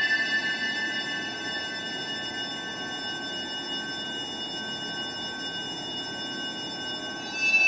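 Eerie horror sound-effect drone: several held, high-pitched screeching tones over a low rushing rumble, steady through most of the stretch. It swells into a louder screech near the end.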